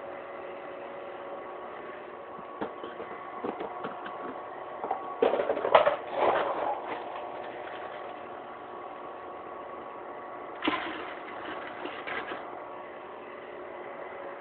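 A steady mechanical hum with several fixed tones. On top of it come bouts of clattering and handling noise: a light patter a couple of seconds in, the loudest clatter lasting about two seconds around the five-second mark, and a shorter one near the end.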